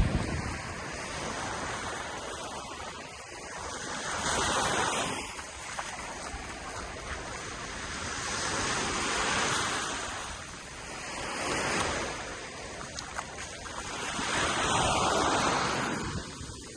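Ocean waves breaking and washing up a beach, the surf rising and falling in four swells a few seconds apart.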